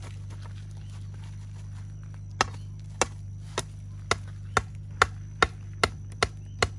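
A shovel striking repeatedly into the cooking pit: sharp knocks about two a second, starting a little over two seconds in, over a steady low hum.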